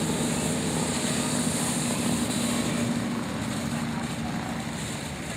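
Bonkers fountain firework burning: a steady rushing hiss of spraying sparks with a low hum beneath, easing off slightly near the end.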